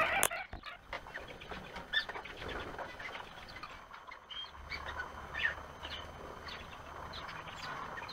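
Scattered short bird chirps and whistles, with soft ticks and scratches from crested wood partridges pecking seed in a feed tray.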